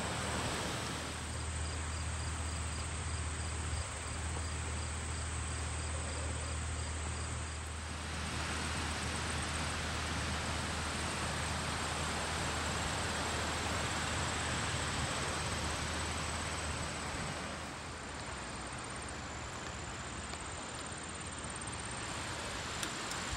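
Insects trilling steadily at a high pitch over a broad, even hiss. A low rumble underneath fades out about two-thirds of the way through.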